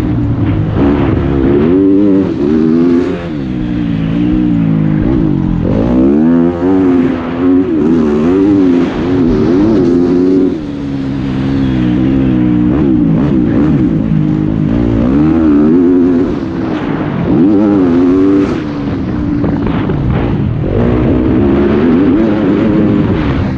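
Motocross dirt bike engine ridden hard, heard from on the bike: its pitch climbs again and again under throttle, then drops with gear changes and brief roll-offs.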